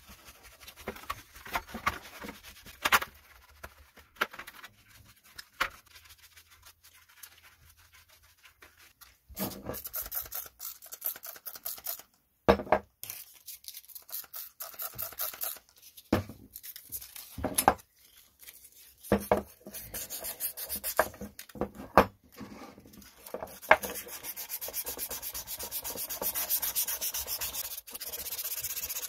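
Hand scrubbing and sanding of two-stroke chainsaw engine parts. A brush scrubs the soapy cylinder, then abrasive rubs on the piston in short, uneven strokes, with a steadier stretch of rubbing near the end.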